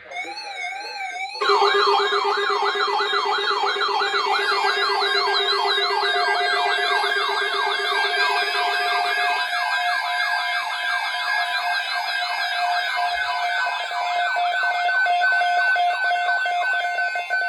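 Electronic sirens warbling rapidly up and down, about three to four sweeps a second. One siren is heard alone at first, then several more come in louder about a second and a half in and overlap, with steady tones sounding under them.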